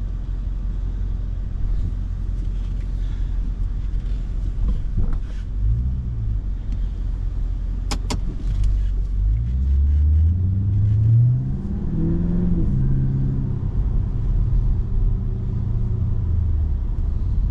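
Holden Caprice's 6-litre V8 fitted with J pipes, heard from inside the cabin while driving: a steady low rumble, with the revs climbing twice around the middle under acceleration, a brief dip between, before settling. A sharp click sounds a little before halfway.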